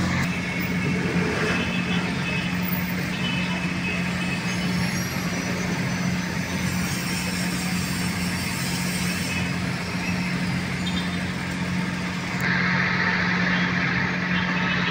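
Busy street traffic: cars and trucks passing, with a steady low engine hum underneath.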